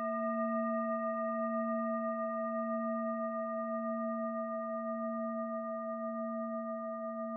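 A singing bowl rings on in one long sustained tone: a deep note with several unevenly spaced higher ringing tones above it. It wavers slowly and fades a little.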